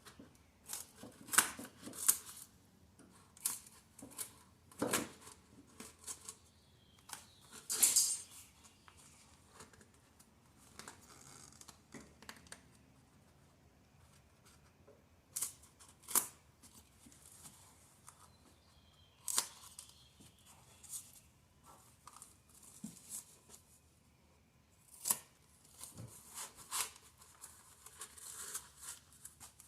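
Scattered sharp clicks and taps with bursts of rustling and scraping between them, the sounds of hands fitting and pressing adhesive-backed padding onto a car floor.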